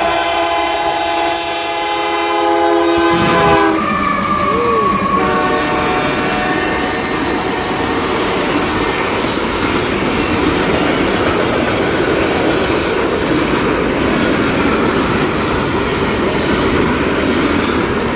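Freight train's diesel locomotive horn, on a red Canadian Pacific lead engine, sounding a long chord that drops in pitch as the locomotive passes about three and a half seconds in, with a shorter blast just after. Then the steady rumble and rattle of the freight cars rolling past.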